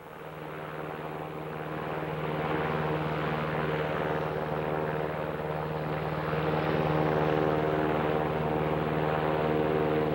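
Single-engine light aircraft in flight: its piston engine and propeller drone steadily with a low, even hum, fading up over the first two seconds or so and then holding level.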